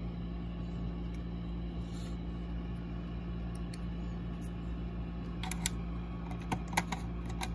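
Small sharp clicks of a screwdriver and screw working against a desk lamp's plastic housing, a handful of them in the last two seconds, over a steady low hum.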